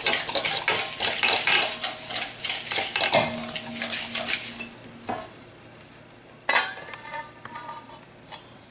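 Wire whisk beating rapidly against a stainless steel mixing bowl, working eggs into a dry flour and brown-sugar mixture, stopping about four and a half seconds in. Then a metal clink, and a little later a sharp clang that rings on, as steel bowls knock together.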